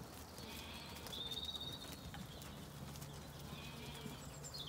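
A flock of Zwartbles sheep and lambs trotting along a grassy lane, heard faintly as soft hoof and footstep patter. A bird gives a thin, high whistled call about a second in, and shorter ones later.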